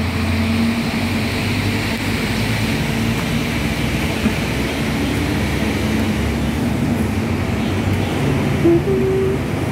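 Steady road traffic noise: the engines of passing buses and other vehicles humming and rumbling.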